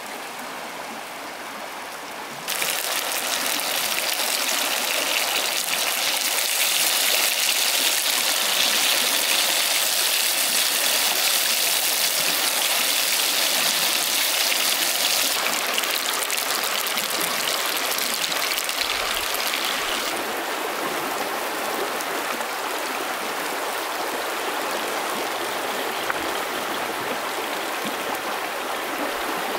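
Shallow stream flowing and rippling over rocks: a steady rush of water that gets louder about two seconds in.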